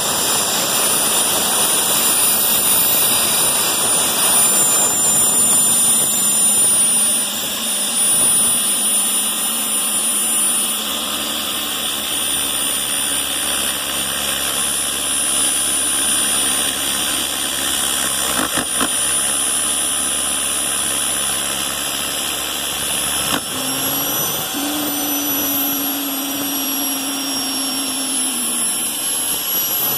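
Rotorway JetExec helicopter's turbine engine running with a steady high whine. Late on, the whine's pitch rises and then slowly eases back down, and a lower tone comes in for a few seconds.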